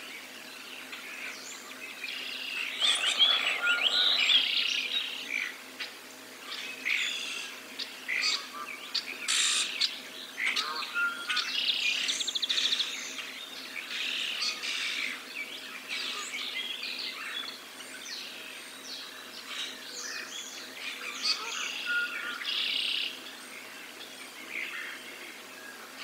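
Spring morning chorus of many songbirds, with chirps and trills overlapping throughout. The loudest stretch of calls comes about three seconds in.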